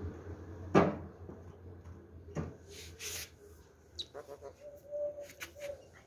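A sharp knock about a second in, another about two seconds later, then a scatter of lighter clicks and taps.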